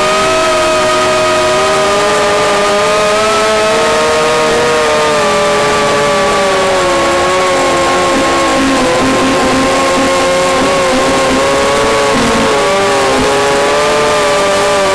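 Radio-control model plane's motor and propeller, heard from its onboard camera: a loud, steady whine with several overtones, its pitch wavering and dipping slightly as the throttle changes, over a steady hiss.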